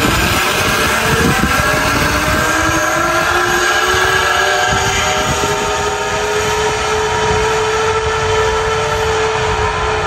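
Zipline trolley pulleys rolling along a steel cable, a steady whirring whine whose pitch creeps up over the first several seconds as the rider picks up speed, then holds.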